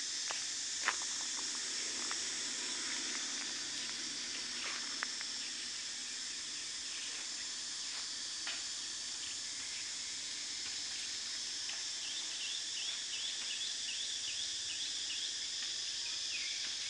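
Steady high insect drone of outdoor ambience, with a few faint clicks in the first seconds and a rapid run of short high chirps over the last few seconds.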